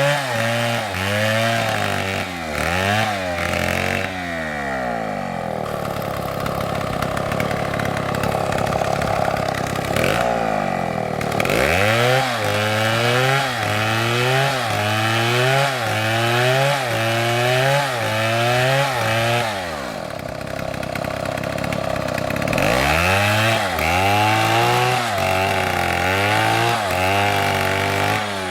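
STIHL two-stroke chainsaw cutting wood. The engine pitch rises and falls in quick pulses about once a second as the throttle is worked, with stretches of steadier running between.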